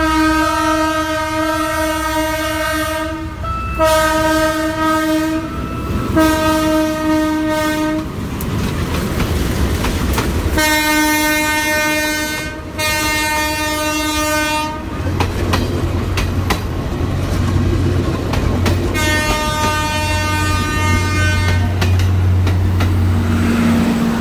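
Philippine National Railways locomotive-hauled train sounding its multi-tone air horn in six long blasts, the last one weaker, as a warning for the level crossing. From about halfway the locomotive and coaches pass close by with a steady low engine sound and wheels clacking over the rail joints.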